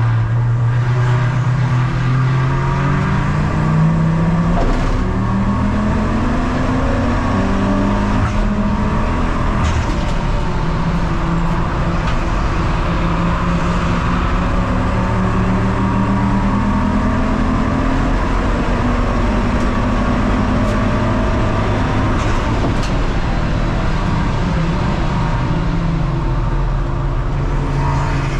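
Ford Focus Mk2 race car's engine running hard at speed, its pitch climbing through each gear and dropping back at every shift, several times over.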